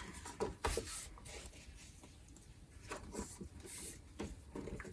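A paper-and-card desk calendar being handled: soft rubbing and scraping of paper, with a few light taps and brushes.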